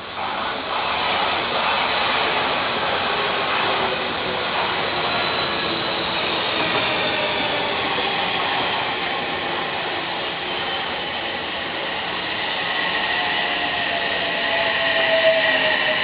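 Odakyu electric train running through a level crossing: a steady, loud noise of wheels on the rails, with a whine that falls in pitch over the last few seconds.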